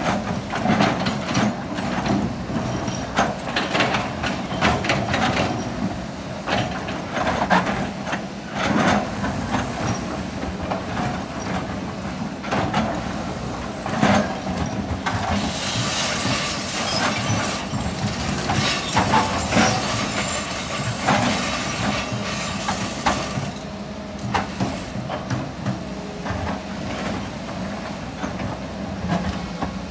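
Hitachi ZX210 hydraulic excavator with its diesel engine running steadily while the bucket digs into rocky sand, with frequent knocks and clatters of stone against steel. Midway there is a stretch of louder rushing hiss and rattle.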